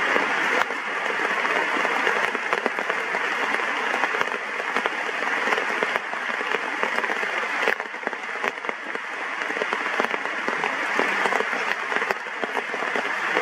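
Heavy rain pouring down steadily, a dense hiss of drops with occasional sharp taps of drops striking close by.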